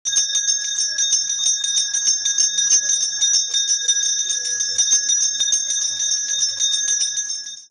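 Brass temple bell rung rapidly and continuously during worship, a steady bright ring renewed by fast repeated strikes, cutting off suddenly near the end.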